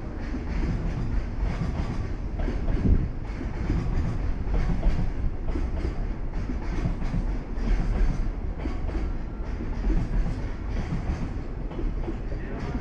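Freight train of container flat wagons rolling past: a steady low rumble with irregular knocks from the wheels running over rail joints.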